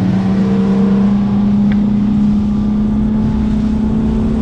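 A 250-horsepower outboard motor on a bass boat running at speed, a loud steady drone that climbs a little in pitch in the first couple of seconds and then holds.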